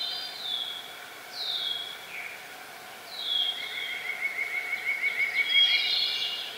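Songbirds singing: several short whistled notes sliding downward, then a rapid trill of about six notes a second lasting about two seconds, with the loudest singing near the end.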